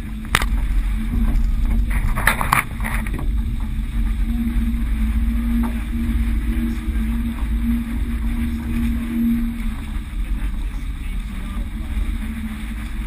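Wind buffeting the microphone aboard a sailboat under way: a steady low rumble with a faint steady hum, and a few sharp knocks in the first three seconds.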